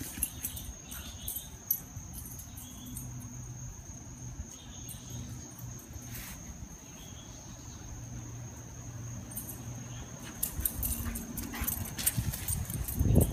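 Steady high-pitched insect drone over a low hum, with a few faint short chirps and scattered light clicks and rustles; the rustling grows louder near the end.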